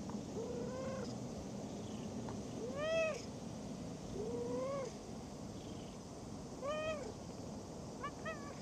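Cat meowing repeatedly: about five separate meows that rise and fall in pitch, one every second or two. The loudest is about three seconds in, and two short ones come close together near the end.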